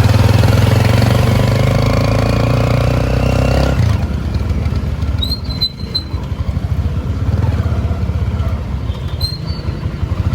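An engine running steadily, its sound easing and changing about four seconds in, with short high chirps in the middle and again near the end.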